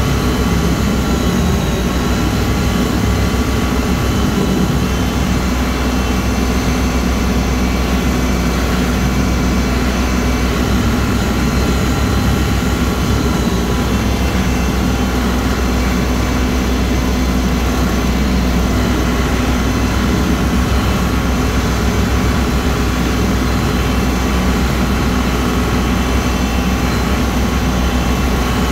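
Kubota L3302 tractor's three-cylinder diesel engine running steadily under load, driving a rear rotary cutter through tall overgrown grass and brush.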